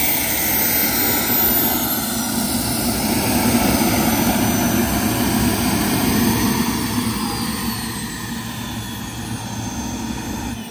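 Jet Cat 180 model gas turbine of a large RC jet running, a dense rushing sound with a thin high whine that slides down slightly in the first two seconds. The sound fades gradually over the last few seconds.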